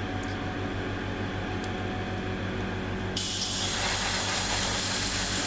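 Steady motor hum, then about three seconds in an airbrush starts spraying paint with a sudden, loud, even hiss that carries on.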